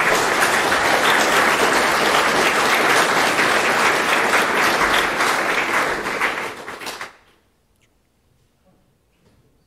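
Audience applauding: dense, even clapping that fades and dies away about seven seconds in.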